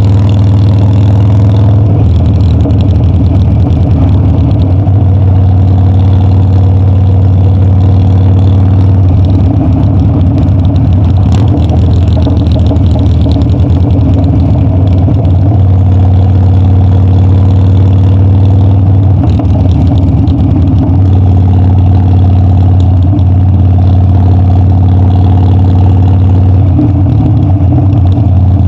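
Harley-Davidson Dyna's air-cooled 45-degree V-twin running loud while riding, its engine note holding steady for stretches and shifting a few times as the throttle and speed change.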